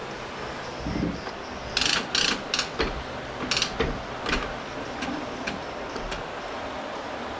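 A run of sharp mechanical clicks and rattles over a few seconds, like metal hardware being handled or a ratchet-type mechanism being worked, thinning out toward the end.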